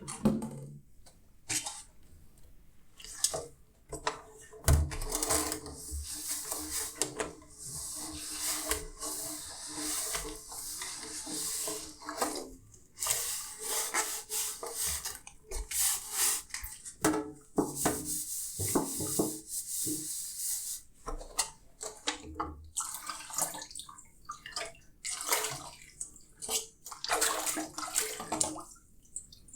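Tap water running into a kitchen sink while dishes are washed, the stream starting and stopping, with scattered clinks and knocks of dishware.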